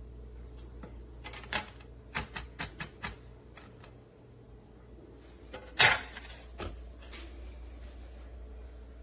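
Handling noise: a quick run of sharp clicks and taps in the first few seconds, then one louder clack about six seconds in and a lighter tap just after, like hard objects being set down or knocked together.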